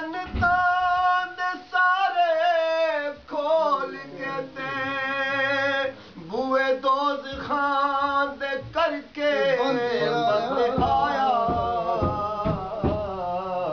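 A man singing a Punjabi naat, drawing out long held notes that waver in pitch, with short breaks between phrases.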